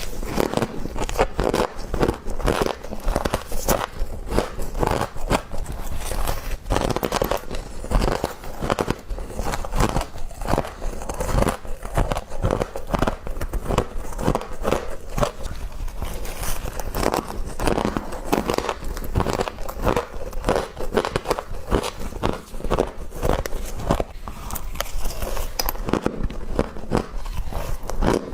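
Close-miked crunching of flaky freezer frost: quick, crackly bites and chews following one another without a break.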